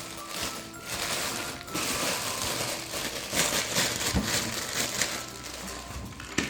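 Plastic packet of toy gun bullets and a stand being torn and rustled open by hand, in uneven bouts of rustling.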